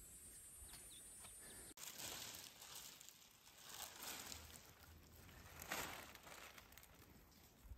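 Faint rustling that swells and fades about three times, after a near-silent first couple of seconds.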